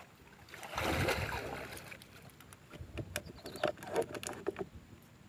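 Shallow swamp water splashing and sloshing as hands work in it beside a fish trap, loudest about a second in, then a scatter of light clicks and rattles.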